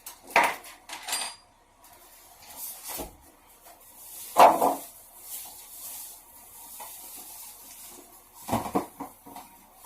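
Knocks and clatter of a small electric water heater and its fittings being handled and unpacked, about five separate bumps with light rubbing between them, the loudest about halfway through.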